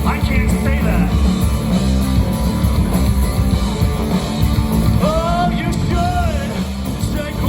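Rock music with guitar and a sung vocal line that comes in about five seconds in, over a steady heavy low end.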